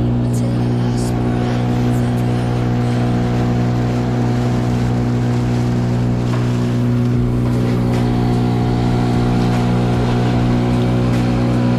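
Boat motor running at a steady, unchanging speed, a constant engine hum that holds one pitch throughout.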